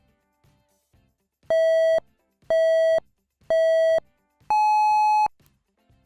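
Electronic countdown beeps: three short buzzy beeps about a second apart, then a longer, higher beep, the classic start signal.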